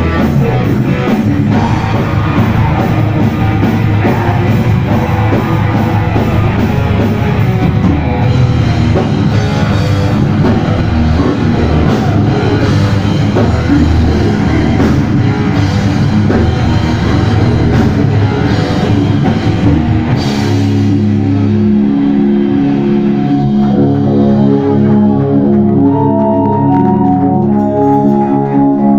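Heavy rock band playing live and loud, with distorted guitars, bass and drums. About twenty seconds in the drums drop out and held chords ring on.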